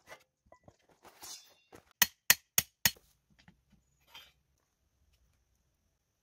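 Stainless steel camp grill being taken from its carry bag and set up: a short rustle, then four sharp metallic knocks in quick succession as the steel parts are fitted together, and a brief scrape a little past the middle.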